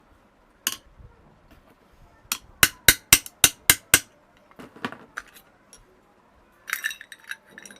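Hammer blows on a steel rivet in a small cooler motor's end cover, driving the rivet out: one blow, then a quick run of about seven sharp blows, a few lighter knocks, and a clatter of metal near the end.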